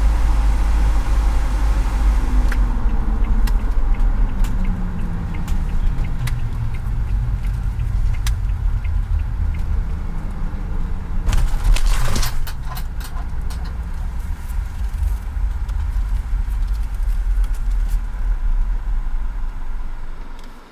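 A vehicle driving, with low engine and road rumble whose pitch falls over the first several seconds as it slows. Scattered light clicks and a louder burst of noise come about halfway through, and the rumble cuts off suddenly at the end.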